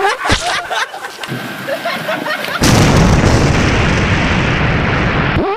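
Water splashing and shouts from someone running across floating mats. About two and a half seconds in, a loud explosion sound effect suddenly starts, goes on for about three seconds and cuts off sharply near the end.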